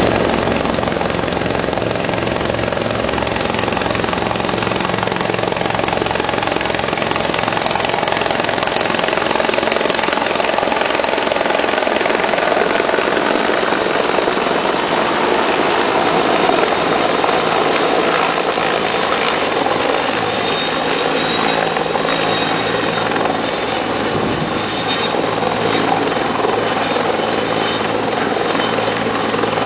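Helicopter's main rotor and turbine engines running at full power as it approaches and sets down on a helideck, a steady loud din. A high turbine whine comes up in the second half as it draws near.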